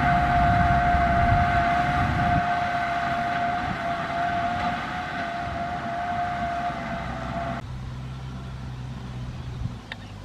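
Kubota M6040SU tractor's diesel engine running, with a steady high whine over the engine. The low engine sound drops back a couple of seconds in, and the whine stops abruptly near the end.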